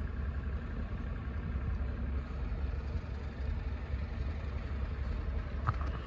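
Steady low engine rumble of trains at a railway platform, with one brief knock near the end; no horn sounds.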